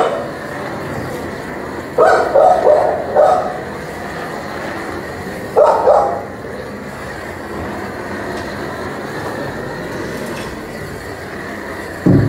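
Dogs barking: a quick run of about four barks a couple of seconds in, another bark near the middle, and one more at the very end, over a steady rushing noise.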